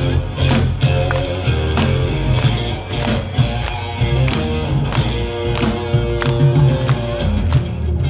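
Live rock band playing through a large stage sound system: electric guitar, bass and drum kit with a steady beat, about three drum hits every two seconds.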